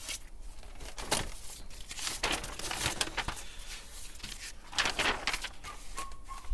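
Paper rustling and crinkling in a run of short bursts as pages of a bound set of project drawings are flipped and a drawing sheet is opened out. The loudest rustle comes about five seconds in.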